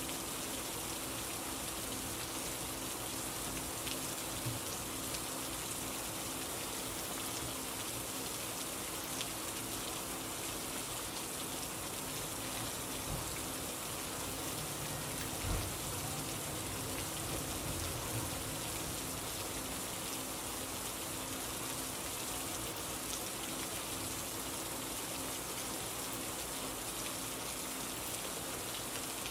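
Steady rain falling, an even continuous hiss, with a soft low knock about halfway through.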